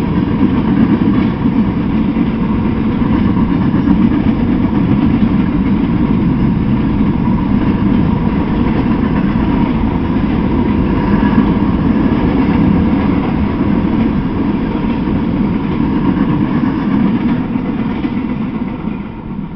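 Freight cars, covered hoppers and a flatcar, rolling past at speed: a steady, loud rumble of steel wheels on the rails with a faint ringing tone above it. The sound falls away near the end as the last car clears.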